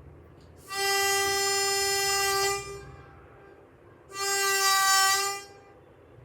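Two long horn blasts on one steady pitch, the first lasting about two seconds and the second, about three and a half seconds in, slightly shorter.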